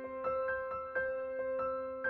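Background piano music: single notes struck at a gentle, even pace over a held low note.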